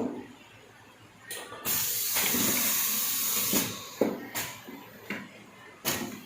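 A cup filling and sealing machine working: a hiss of about two seconds, surrounded by sharp mechanical clicks and knocks.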